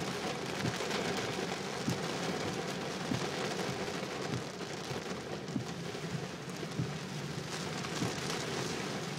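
Heavy rain hitting a car's roof and windscreen, heard from inside the cabin: a steady hiss with frequent sharp drop hits.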